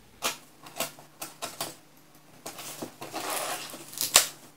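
Packing tape on a cardboard box being cut with a small blade: a run of short scrapes and clicks, with one sharp snap about four seconds in.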